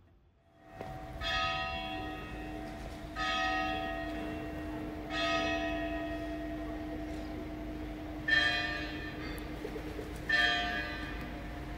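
A bell tolling, struck five times about two seconds apart, each stroke ringing on into the next; the last two strokes sound at a different pitch. A steady low hum runs underneath from about two seconds in.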